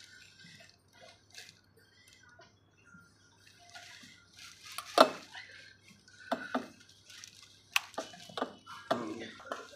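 Hard clicks and knocks of a white leg tube being pushed and twisted into the pink plastic frame socket of a baby high chair. The sharpest snap comes about five seconds in, followed by a run of quicker clicks and clatter as the tube seats.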